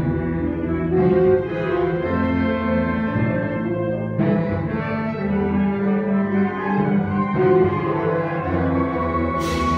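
Live wind ensemble playing a slow concert piece: woodwinds and low instruments hold sustained chords that shift every few seconds, with a sudden bright crash near the end.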